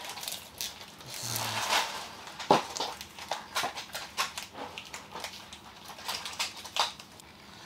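Small plastic toys and their packaging being handled: irregular clicks, crackles and short rustles.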